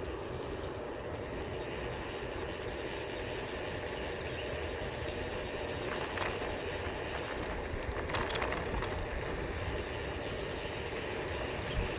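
Steady rumbling noise of a bicycle in motion: wind on the microphone and tyres rolling along the trail.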